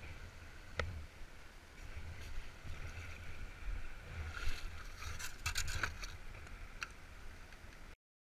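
Light knocks and clicks from a packraft and its paddle, over faint river water and a low wind rumble on the microphone. A cluster of knocks comes about halfway through, and the sound cuts off abruptly near the end.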